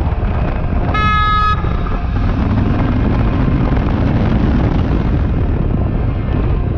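A vehicle horn gives one short beep about a second in, over steady wind and engine rumble from a vehicle on the road.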